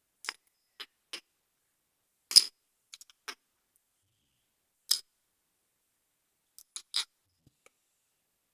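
Slime being squeezed and poked, giving a run of short, sharp clicks and pops at irregular intervals with silence between them; the loudest comes about two and a half seconds in.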